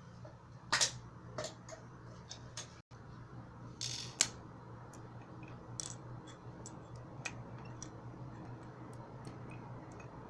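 Microwave-oven fan motor humming steadily at a low pitch, with scattered sharp clicks and taps, the loudest about a second in and again about four seconds in.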